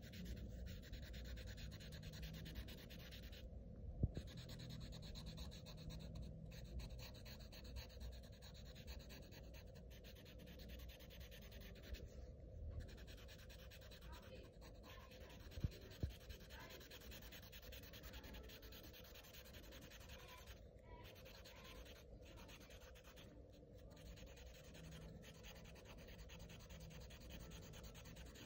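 Sharpie permanent marker tip rubbing on paper in short strokes as black areas are filled in, faint, with a couple of sharp taps.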